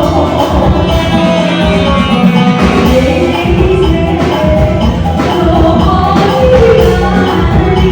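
Loud band music: a melody line moving over a steady drum and bass beat.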